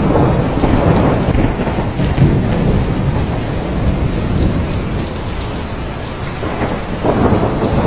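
Thunderstorm: steady heavy rain with low rolling thunder. The thunder rumbles loudest in the first couple of seconds, eases off in the middle and builds again near the end.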